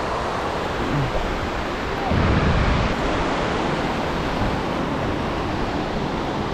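Shallow surf washing in over sand, a steady rush of small breaking waves, with a louder low rumble for about a second some two seconds in.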